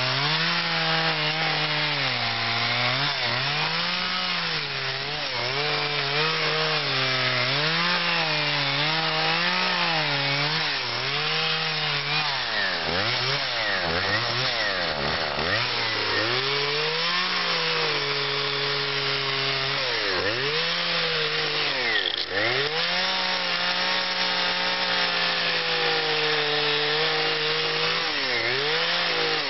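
Husqvarna two-stroke carving chainsaw running at high revs as it cuts into cottonwood, its pitch rising and falling continually with the throttle and the load. Around the middle it drops several times toward idle and picks back up.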